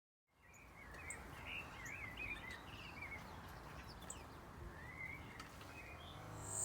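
Small songbirds twittering in short bursts of quick chirps, the first few seconds and again about four seconds in, over a steady background rumble.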